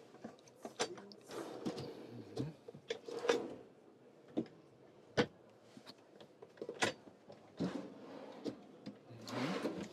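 Motorhome kitchen drawers being pulled open and pushed shut by hand: a string of sharp clicks and knocks from the drawer fronts and catches, with softer sliding rustles between them.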